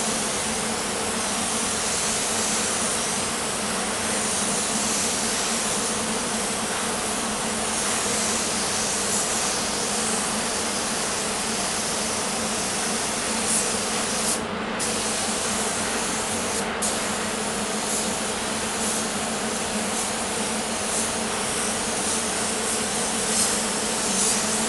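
Compressed-air paint spray gun hissing steadily as it sprays, over a steady low hum; the hiss cuts out briefly twice around the middle.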